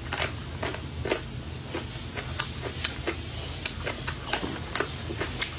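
Chewing crunchy shredded papaya pickle: irregular crisp crunches, about three a second.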